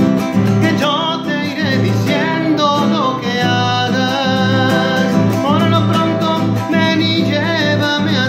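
Acoustic guitar strummed steadily while a man sings a melody over it.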